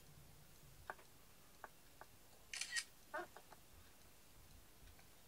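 A metal fork cutting into a soft mochi sweet, giving a few faint clicks against a ceramic plate and one brief scrape a little past halfway; otherwise the room is nearly silent.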